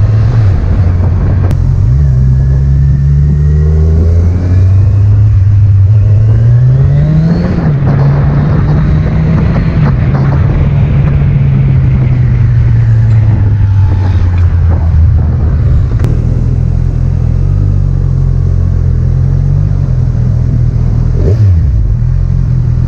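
Kawasaki Z1000's inline-four engine running under way, its pitch climbing to a peak about seven seconds in, then easing back with a short dip near the end.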